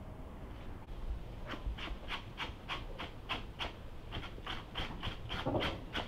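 Knife blade scraping raw veal tripe in quick, even strokes, about three a second, starting about a second and a half in.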